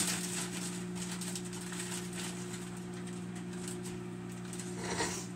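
Steady low hum made of several even tones, with faint scattered ticks and crackles over it.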